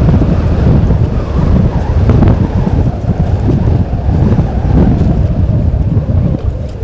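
Wind buffeting the outdoor camera's microphone: a loud, low rumbling noise that rises and falls in gusts.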